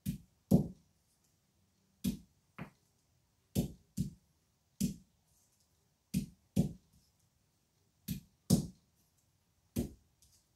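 Green olives being cracked one at a time with a hand-held stone on a board on the floor, splitting them for curing: sharp knocks, mostly in pairs about half a second apart, coming every second and a half or so.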